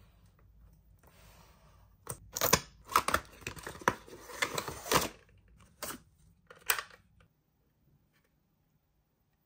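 Toy packaging being handled and torn open: a dense run of tearing, crinkling and sharp clicks of cardboard and plastic about two to five seconds in, followed by two separate clicks.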